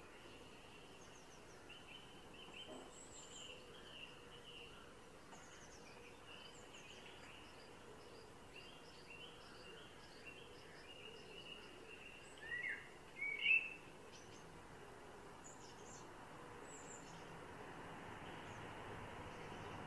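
Songbirds twittering with many short high chirps throughout, and two louder rising notes about twelve to thirteen seconds in. A faint background hiss grows toward the end.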